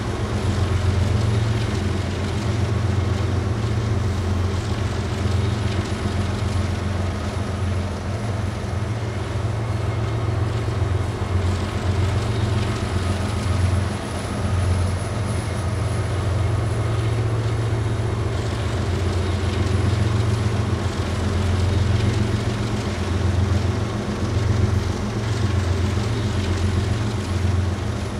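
BNSF diesel-electric freight locomotives running under way, a steady low engine rumble that swells and eases slightly.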